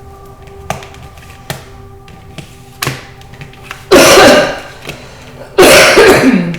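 Soft background music with a steady sustained drone, a few faint clicks, and two loud rushing bursts of noise, one about four seconds in and one near the end.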